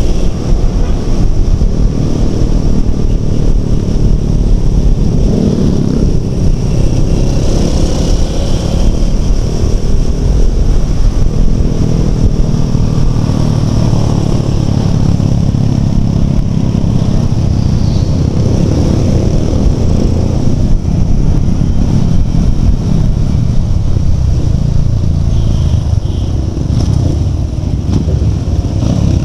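Motorcycles riding on the road: engines running at road speed with wind noise over the rider's microphone. The engine pitch rises and falls a little as throttle changes.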